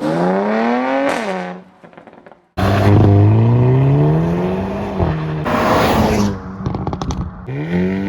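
Hyundai i30 N's four-cylinder engine revving hard under acceleration, its pitch climbing and then dropping at quick dual-clutch shifts or lift-off. A short climb falls away about a second in. A long pull starts about two and a half seconds in and drops at a shift near five seconds. A rapid run of exhaust crackles and pops follows, and it revs up again near the end.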